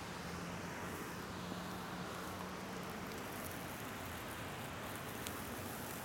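Steady rushing of a waterfall, an even hiss of falling water.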